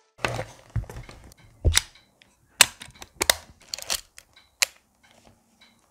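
Olympus OM-1 35 mm film SLR, a fully mechanical camera, being worked by hand: a series of irregular sharp mechanical clicks from its controls, the loudest about two and a half seconds in.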